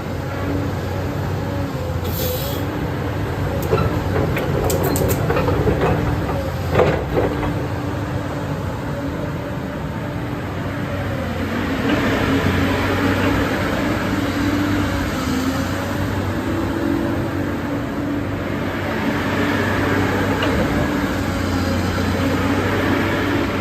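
Caterpillar 329D excavator's diesel engine running steadily, its pitch shifting a little as the machine works, with a sharp knock about seven seconds in.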